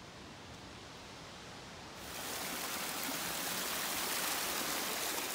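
Small mountain stream tumbling over rocks, a steady rush of water that comes in abruptly about two seconds in, after a fainter hiss.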